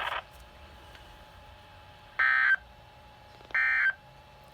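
Weather radio broadcast audio cuts off a moment in, followed by two short, high electronic beeps from a weather radio, about 1.4 seconds apart.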